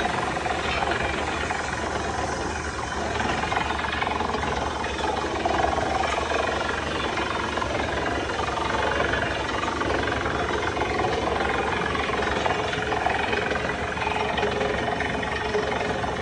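Truck-mounted drilling rig running steadily while it drills, its engine and rotating drill string making an even mechanical din as muddy cuttings wash out around the drill pipe.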